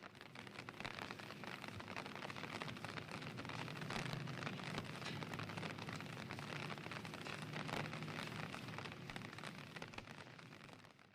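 Rain pattering on a surface, a dense run of small drop ticks that swells up within the first second and fades away near the end.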